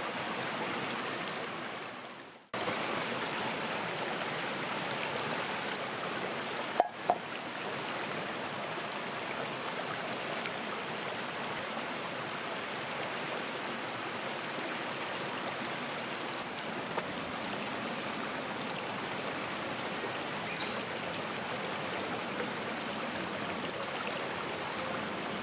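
River water rushing and splashing steadily. The sound fades and cuts out for a moment about two and a half seconds in, and two sharp clicks come about seven seconds in.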